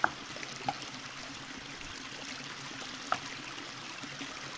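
Shallow stream of muddy water trickling steadily over stones, with a few brief splashes as hands move stones in it to divert the flow.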